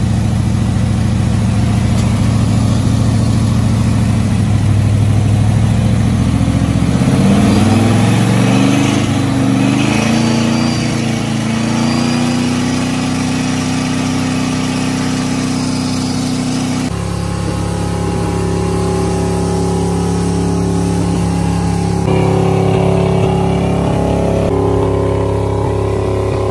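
Ford 351M V8 in a 1979 Ford F-250 running with the throttle held wide open and no load, being over-revved on purpose to destroy it. Its pitch climbs about seven seconds in and then holds high, and the tone changes abruptly near the middle.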